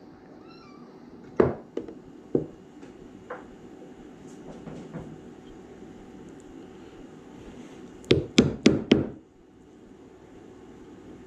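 A few scattered knocks, then four quick, sharp taps from a claw hammer striking a metal punch held on a small wooden block set with dowels.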